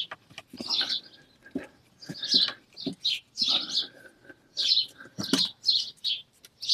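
A bird chirping and singing in short repeated phrases, with a few faint clicks from a screwdriver working the hinge screws.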